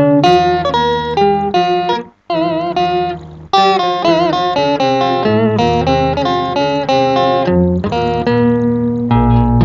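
Electric guitar played through a multi-effects pedal: a single-note melody with vibrato on the held notes. It breaks off briefly about two seconds in and comes back quieter, then picks up again at full level about a second later.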